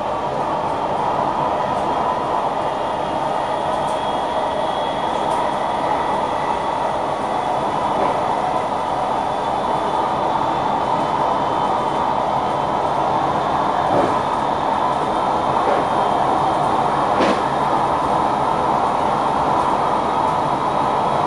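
NS Sprinter Lighttrain (SLT) electric multiple unit running along the track, heard from inside the driver's cab: a steady rumble of wheels on rail with faint high tones over it, and two sharp clicks in the second half.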